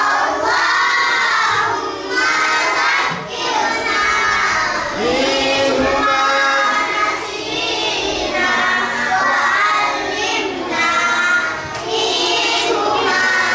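A class of young children chanting a prayer (du'a) together in unison to a sung melody, phrase after phrase with short breaks between lines.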